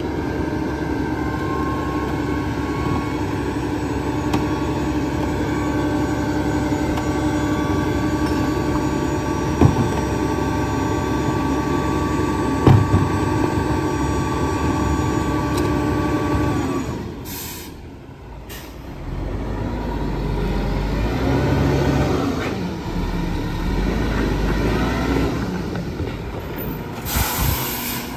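1997 Mack RD rear-loader garbage truck running its packer hydraulics, a steady whine for most of the first seventeen seconds with two thumps of trash dropping into the hopper. It then goes briefly quieter and the packing cycle resumes with shifting pitch, broken by two short hisses of air.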